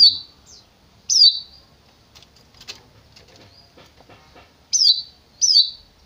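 Caged long-tailed shrike (cendet) repeating a short, high, falling meow-like call: two calls near the start, a pause with only faint ticks, then two more near the end.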